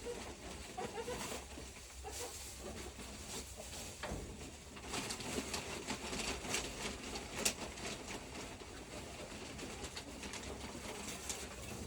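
Hens in a coop making soft, low cooing calls, with scattered rustles and scuffs as fresh mulch bedding is spread.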